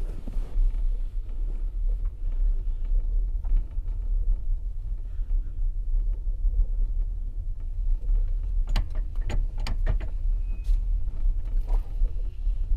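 Low, steady rumble of a passenger coach rolling slowly out of a station, heard from inside the compartment, with a few sharp clicks about nine seconds in.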